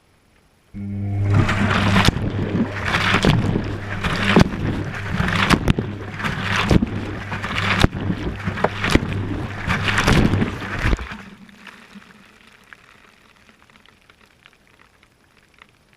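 Whirlpool washing machine drum turning on a wash cycle, heard from inside the drum: a steady motor hum under surges of sloshing water and tumbling laundry about once a second. It starts about a second in and stops about eleven seconds in, a pause in the tumbling.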